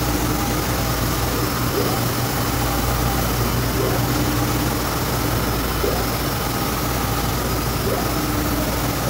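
Epson SureColor V7000 UV flatbed printer running a print on a plywood sheet: a steady machine hum and fan noise as the print carriage sweeps back and forth, with a short rising whine about every two seconds.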